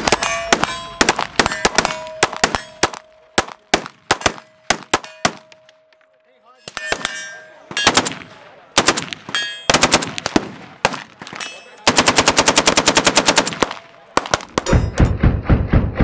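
Gunfire: single shots at an uneven pace, then a long burst of automatic fire from an AK-pattern rifle, and near the end another fast string of shots.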